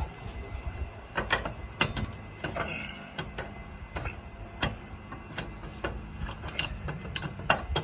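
Steel crowbar prying at a plastic bike-rack locking knob to break it off: irregular sharp clicks, knocks and cracks of metal working against plastic.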